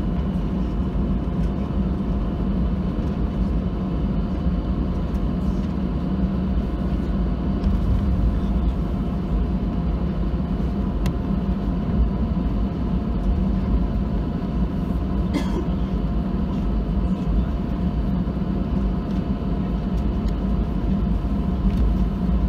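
Cabin noise of an Airbus A319 taxiing, heard from inside over the wing: its CFM56 engines at taxi power give a steady low rumble with faint steady tones above it.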